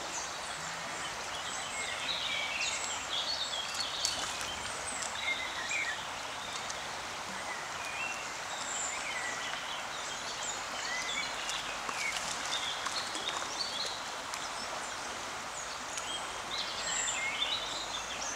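Birds singing and chirping over the steady rush of flowing river water.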